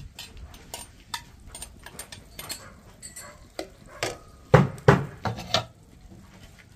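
Utensils clinking and scraping in a frying pan as eggs go in with the sautéed tomato and onion. There are light clicks throughout and a cluster of louder knocks about four and a half to five and a half seconds in.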